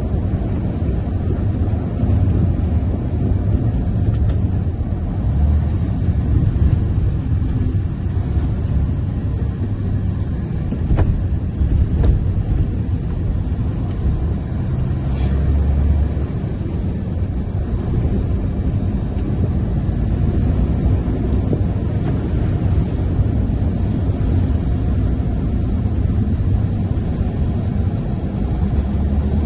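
Tipper truck's diesel engine and tyres giving a steady low drone while it cruises along the road, with a few faint ticks.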